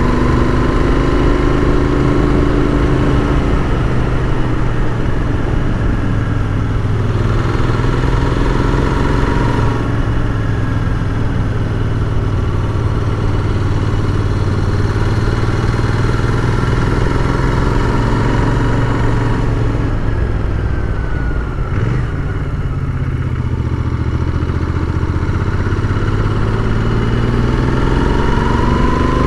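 Royal Enfield Continental GT 650's parallel-twin engine under way. The engine pitch rises and falls several times with the throttle over a steady low rumble, easing off briefly about three quarters of the way through.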